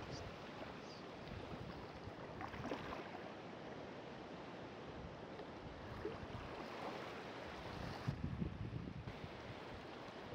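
Wind rushing and buffeting the phone's microphone over rippling river water, with stronger gusts near the end.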